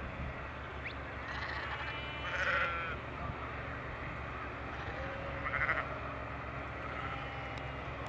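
Sheep bleating, two louder bleats about two and a half and five and a half seconds in and a few fainter ones, over a steady low engine rumble.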